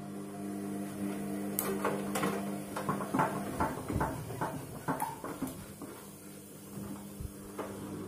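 Front-loading washing machine in its wash cycle: the drum motor hums steadily while the drum turns, with water sloshing and an irregular run of clicks and knocks as the wet jacket and load tumble against the drum, busiest in the middle.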